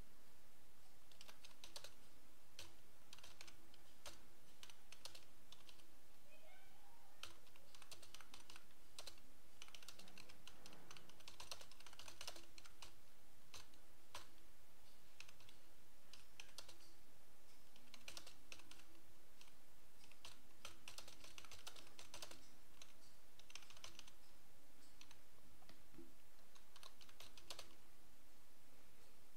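Typing on a computer keyboard: runs of quick keystrokes broken by short pauses, over a steady faint background hiss.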